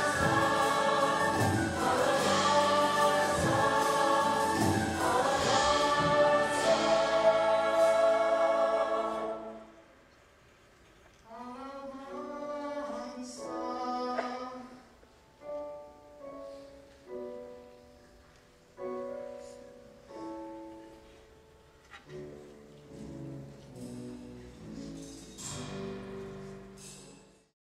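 A stage musical's cast singing together in chorus, held full-voiced notes, breaking off about nine seconds in. Then a quiet, sparse passage of single notes that each die away, ending near the close.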